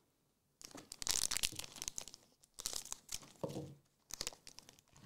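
A foil Magic: The Gathering collector booster pack is torn open and its wrapper crinkled, in several bursts of tearing and rustling starting about half a second in.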